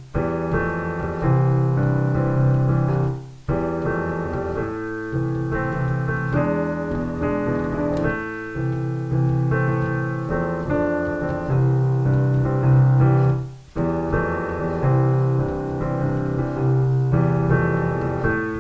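Piano music, played in phrases, with two brief breaks: one about three and a half seconds in and one near the fourteen-second mark.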